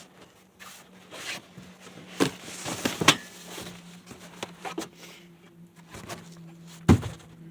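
Large cardboard shipping box being opened and its packaging handled: irregular rustling and scraping of cardboard with several sharp knocks, the loudest about three seconds in and again near the end.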